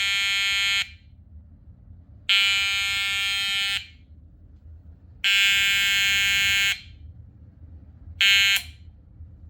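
Edwards 882-2B electronic fire alarm horn sounding slow march time, about 20 blasts a minute: loud buzzy blasts of about a second and a half each, roughly three seconds apart. The last blast is cut short as the horn is switched off.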